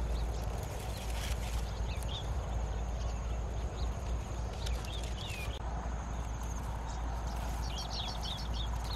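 Bare footsteps on a dirt path and dry grass brushing past, over a steady low rumble. Small birds chirp now and then, and near the end a bird gives a quick run of about seven repeated high chirps.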